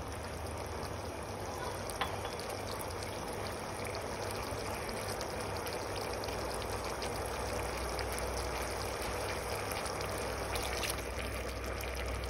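Thin tomato-ketchup and chili sauce simmering in a pan, bubbling with a steady hiss and faint small pops.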